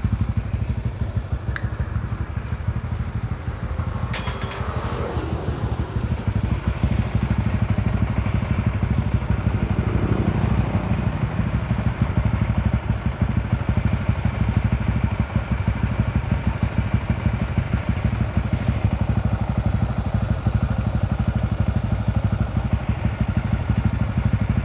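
Warmed-up single-cylinder motorcycle engine idling steadily, with a short metallic clink about four seconds in.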